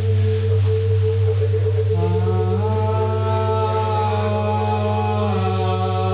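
A woman singing long, held notes into a microphone over a steady low drone and a wavering higher tone. A new sustained note comes in about two seconds in and is held for a few seconds.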